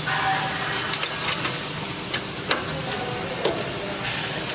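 About five light metallic clicks and taps of a tool on the hex bolts of a packing machine's steel guardrail as the bolts are loosened, over a steady machinery hum.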